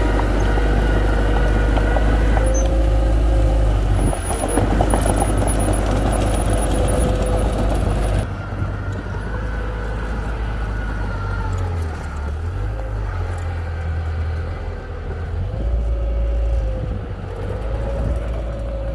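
Heavy construction vehicle's engine running steadily under a wavering whine, with a sudden change in the sound about eight seconds in.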